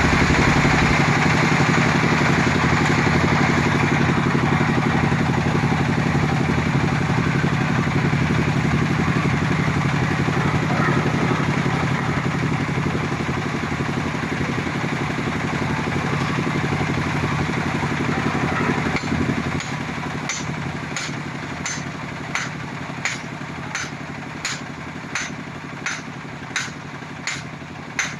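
Engine of a soil-sampling drill rig running steadily. About two-thirds of the way in it quietens, and sharp, evenly spaced knocks begin, about three every two seconds, as the sampler is hammered into the ground.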